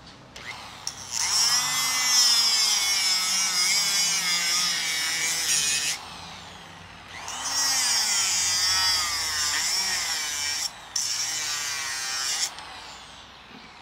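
Angle grinder with a cut-off disc cutting into the steel ball cage of a CV joint, its pitch wavering as the disc bites. It cuts in three passes: from about a second in to six seconds, again from about seven seconds, and after a brief break near eleven seconds until shortly before the end. The cage is being cut apart because the seized joint will not come off with the CV-joint puller.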